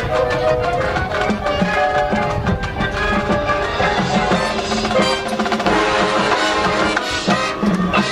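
Marching band music with the percussion to the fore: many quick, sharp drum strokes over held pitched notes.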